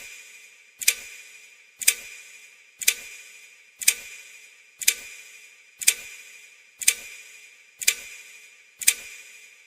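Clock-style ticking: ten sharp ticks, about one a second, each with a short metallic ring.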